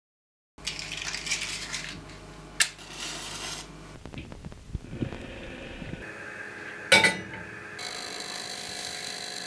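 Kitchen handling sounds: small clinks and clatter of dishes and utensils over a faint steady hum, with two sharp clicks, the louder one near the end.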